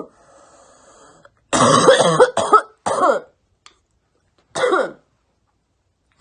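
A young woman coughing in three fits: a long run of hard coughs about a second and a half in, a shorter one near three seconds, and a last brief one near five seconds.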